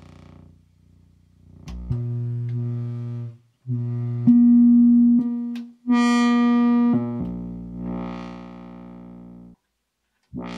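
Korg MS-10 analog monosynth sounding a run of sustained buzzy notes, with clicks as they start; one note jumps up in pitch about four seconds in, and the last, hazier note fades out over a couple of seconds. The output jack is really, really dirty, and the envelope generator isn't shaping the notes as it should.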